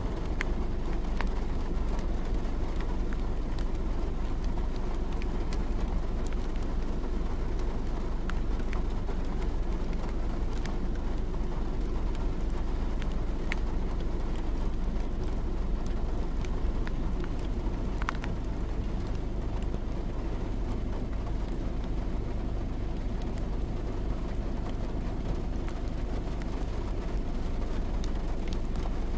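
Steady low road and engine rumble of a car driving, with scattered faint ticks.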